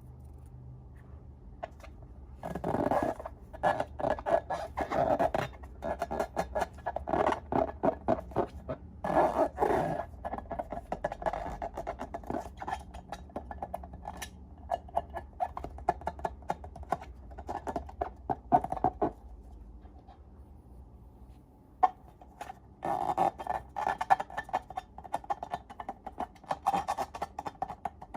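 Slime being worked by hand, making runs of sticky clicking and crackling. The sound eases off for a couple of seconds past the middle, then starts again.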